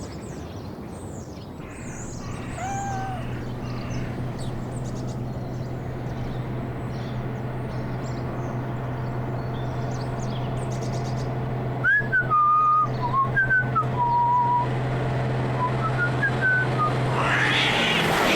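Bird-like chirps and short whistled notes over a steady low hum, swelling louder near the end.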